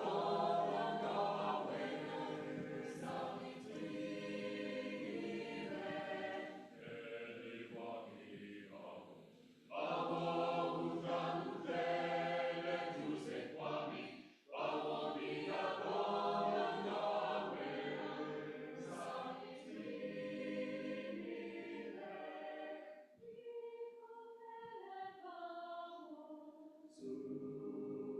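Choir singing a South African choral song in several parts; for a few seconds near the end the low voices drop out, leaving only the upper voices, before the full choir comes back in.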